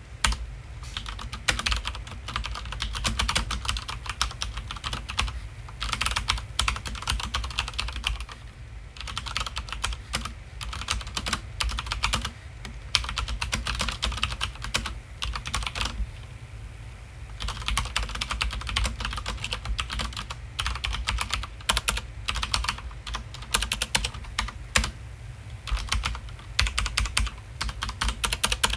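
Corsair Strife RGB mechanical keyboard with Cherry MX Brown switches being typed on: fast runs of key clicks, with short pauses about nine and seventeen seconds in, over a steady low hum.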